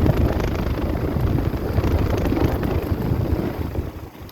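Air-conditioning condensing unit running: the steady whoosh of its fan and the hum of its compressor, with the fan's airflow rushing over the microphone. The sound drops off sharply near the end.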